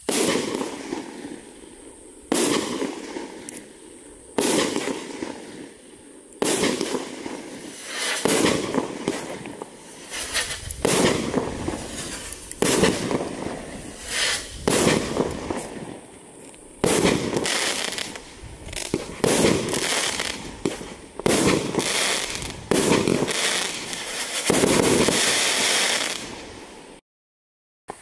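A 30mm 16-shot firework cake (Pyro Mafia 'Respect') firing its shots in quick succession, a sharp burst about every second or two, each fading out as it dies away. The sequence stops abruptly about a second before the end.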